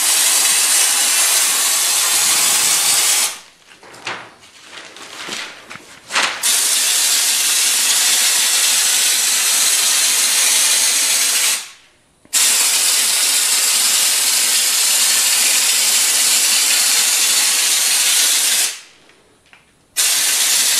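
Compressed-air spray gun hissing steadily as it sprays Raptor bed liner onto a flat steel panel, stopping three times when the trigger is let go: for about three seconds starting about three seconds in, briefly near the middle, and for about a second near the end.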